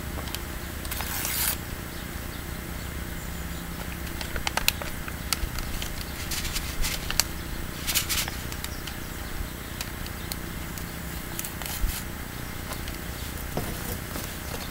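Hands handling a seed packet and a small plant pot while sowing radish seed: short bursts of paper rustling and scattered light clicks, over a steady low background noise.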